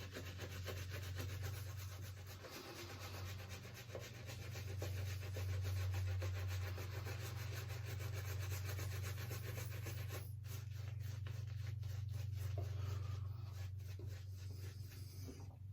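Badger hair shaving brush scrubbing lather into stubble on the face, with rapid dense rubbing strokes. About ten seconds in these thin out to slower, separate strokes. The lather is still building and not yet fully hydrated.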